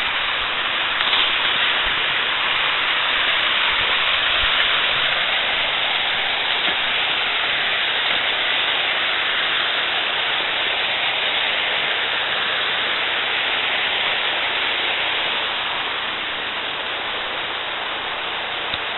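Rushing river water tumbling over rocky cascades: a steady hiss that eases a little near the end.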